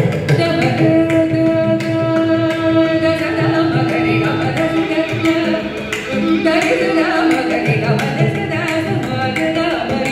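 Carnatic music performance in raga Abhogi, khanda chapu tala: a woman singing with violin, mridangam and ghatam accompaniment. The percussion comes in with a loud stroke at the very start and keeps a rhythm of strokes under a held, sustained melodic line.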